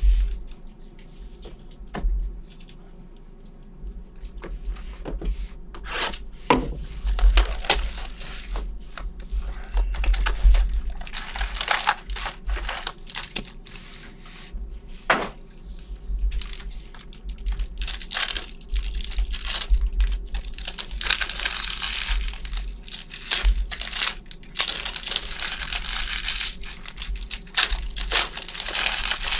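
Trading-card pack wrappers being torn open and crumpled by hand: a long run of crinkling and ripping, busiest in the second half, over soft knocks of handling.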